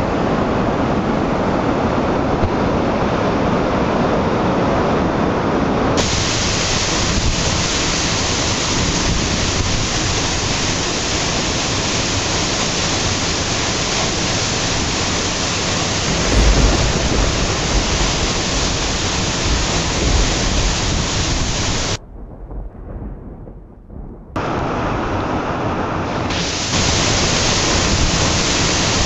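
Waterfall crashing down a rock face: a steady rush of falling water. It turns brighter about six seconds in, gives a brief low thump partway through, and goes muffled and quieter for about two seconds near the end.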